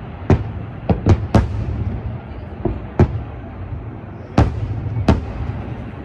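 Aerial firework shells bursting in a fireworks display: about seven sharp booms at uneven intervals, several close together about a second in, over a steady low rumble.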